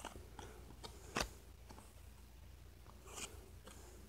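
Collectible-card-game cards being handled and slid past one another: faint light clicks and brushing, with one sharper snap about a second in and a soft rustle near the end.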